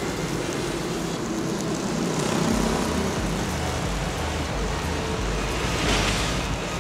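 Stick-welding arc burning a 3.2 mm electrode, powered by a JACPRO ARC 200F mini inverter welder: a steady sizzle.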